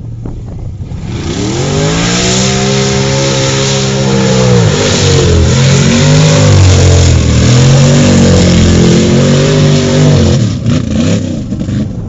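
Mud-bog truck's engine revving hard through a mud pit: the revs climb about a second in, hold, then rise and fall several times over a hiss of spraying mud and spinning tyres, dropping away near the end.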